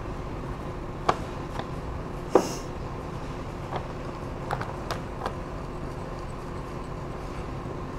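Wire whisk beating a thick egg-and-flour batter in a ceramic bowl, with several sharp clicks of the whisk against the bowl, the loudest about two and a half seconds in, over a steady background noise.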